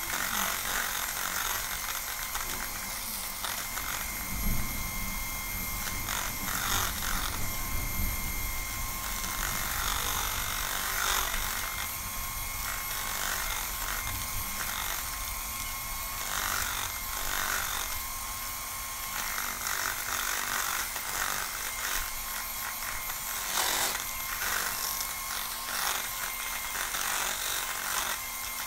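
Electric hand mixer running steadily, its beaters whipping Milo, sugar and hot water into a thick dalgona foam in a bowl, with now and then a knock of the beaters against the bowl.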